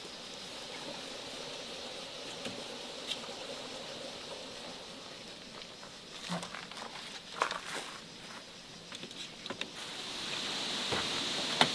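Wooden fruit crates knocking and scraping as they are stacked in the back of a van, a few short knocks in the middle. A steady high hiss comes up near the end.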